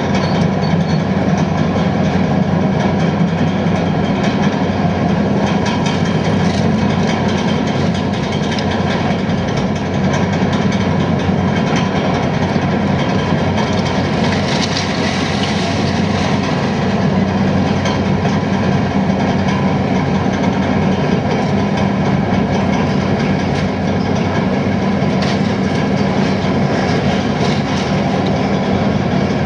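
Heavy diesel demolition machinery running steadily, its engine drone overlaid with continuous clanking and rattling.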